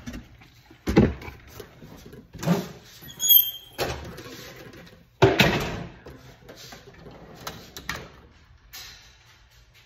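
Handling noise from packing a cardboard box: a series of knocks and bumps, loudest in the first six seconds, with a short high squeak a little after three seconds.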